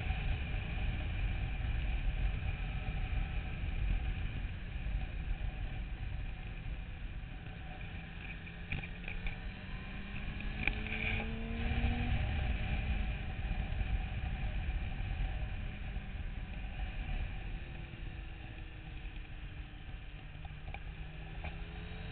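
Motorcycle engine running under way, its pitch slowly rising and falling with throttle and gears, beneath heavy wind rumble on the bike-mounted microphone.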